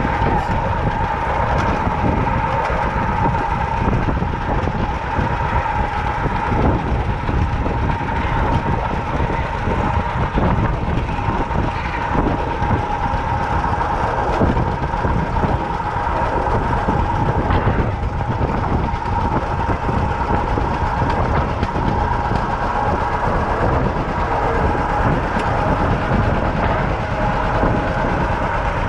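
Vintage John Deere two-cylinder tractor engine running steadily while pulling a wagon, with a steady whine in the mix.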